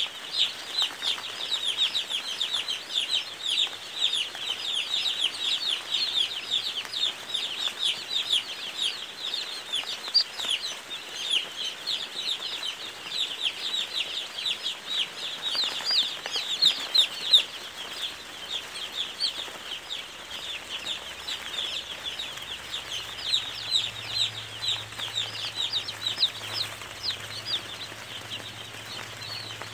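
A large crowd of newly hatched chicks peeping nonstop: a dense chorus of many overlapping short, high, falling cheeps.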